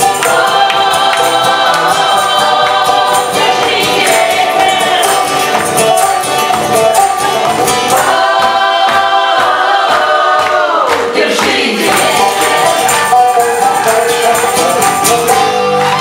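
Live acoustic country-style band playing: several voices singing together over acoustic guitar, banjo, tambourine and fiddle. About ten seconds in, a long held note slides down in pitch.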